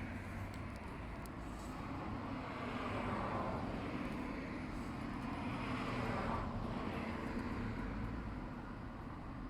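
Outdoor background noise of road traffic, with vehicles passing and swelling louder twice.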